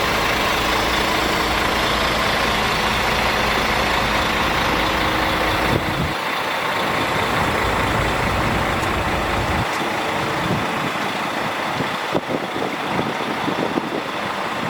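Heavy diesel truck engine running steadily. Its low rumble drops away about six seconds in, leaving a higher mechanical hum with a few light knocks near the end.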